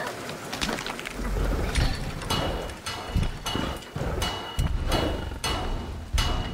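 Film sound-effects mix of a night rainstorm: a low rumble under a run of sharp, irregular taps and knocks, with a thin high held tone coming in about two seconds in.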